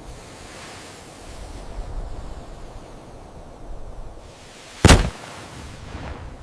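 Dynamite explosion sound effect: a deep rumble swells and rolls on, then a single sharp blast cracks out about five seconds in, the loudest moment, and the rumble trails off near the end.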